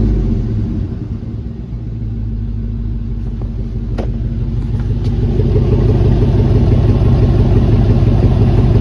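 A 2002 GMC Yukon's 5.3-litre V8 running with its exhaust cut open where the muffler is being removed, a loud deep rumble. It dips a little early on, then grows louder over a few seconds and holds; a short click about four seconds in.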